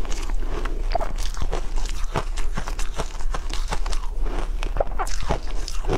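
Shaved ice being chewed close to the microphone: a fast, irregular run of crisp crunches.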